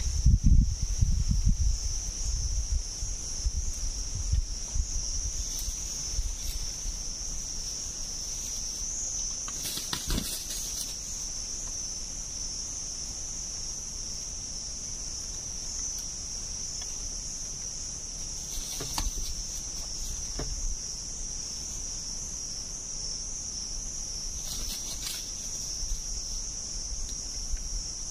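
Steady, high-pitched drone of insects calling without a break. A few brief rustles or clicks sound about a third of the way in, past halfway and near the end, and a low rumble of wind or handling fades over the first few seconds.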